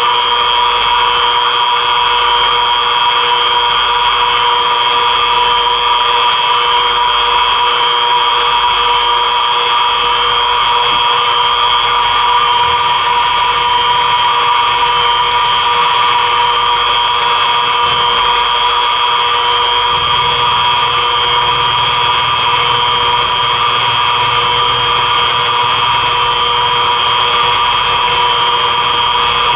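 Mini mill running with a steady whine as a four-flute 3/8-inch end mill cuts a full-width slot about a quarter inch deep in Delrin plastic. The cut goes through the Delrin very easily.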